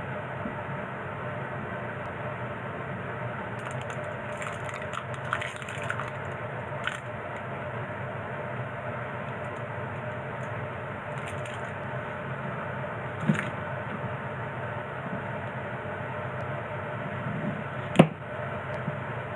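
Kitchen handling sounds over a steady background hum: scattered light clicks and knocks, then one sharp knock near the end as a kitchen knife cuts through a small turnip onto a wooden cutting board.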